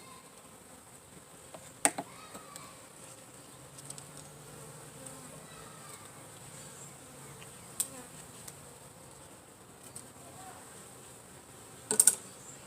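Honey bees from a package buzzing around the hive, a faint low hum that wavers in pitch as bees fly past. Sharp clicks break in about two seconds in and again around eight seconds, with a louder double knock near the end.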